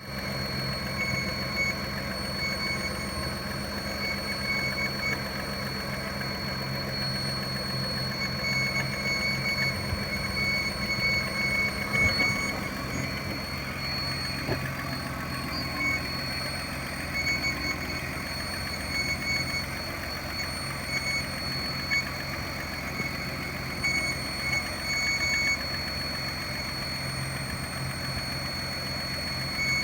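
BMW engine idling with a steady high whistle over the running. The owner places the whistle around the camshafts, sounding as if something rubs there, and fears the engine may be failing; a custom idle air control valve also whistles.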